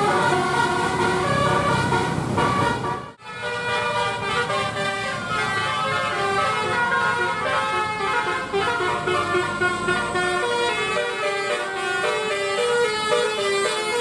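Indonesian bus 'telolet basuri' musical air horn playing a melody of held notes that step up and down in pitch. It breaks off abruptly about three seconds in, and a horn tune starts again straight after.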